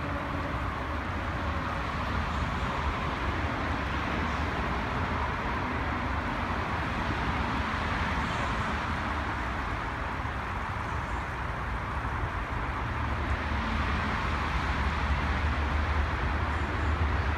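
Shallow river water running over rocks, a steady rushing hiss, with a low rumble of road traffic underneath that grows louder near the end.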